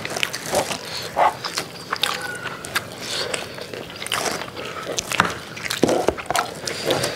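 Close-up eating sounds from several people eating with their hands: wet chewing and lip-smacking in many short irregular clicks, with fingers scooping biryani rice off the plastic-covered table.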